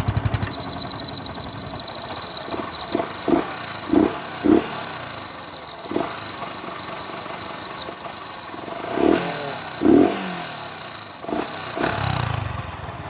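Aftermarket turbo whistle on the exhaust of a Yamaha R15 V2.0's single-cylinder engine, giving a steady high-pitched whistle that wavers slightly. The pitch dips at several short throttle blips, and the whistle cuts off about twelve seconds in.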